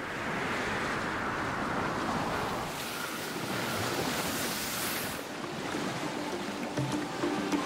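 Sea waves and wind, a steady rush of noise that fades in at the start and swells briefly in the middle. Music begins to come in near the end.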